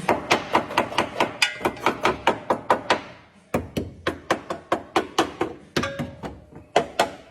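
Rapid hammering, about four or five sharp blows a second, stopping briefly about three seconds in and then carrying on.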